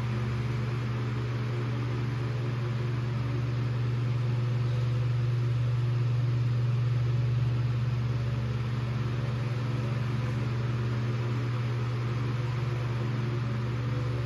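1954 Emerson Electric 79648-SA 16-inch table fan running: a steady motor hum under an even rush of air from the blade. It grows slightly louder toward the middle and eases off again as the oscillating head sweeps.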